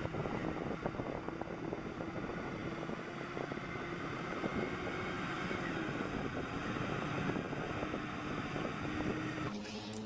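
Caterpillar 777 mining haul truck's diesel engine running steadily as the loaded truck drives along, with wind noise on the microphone.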